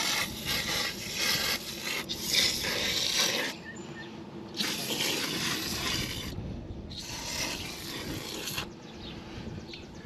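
Aerosol can of Frost King air conditioner cleaner spraying a jet in about four hissing bursts of one to two seconds each, with short breaks between them.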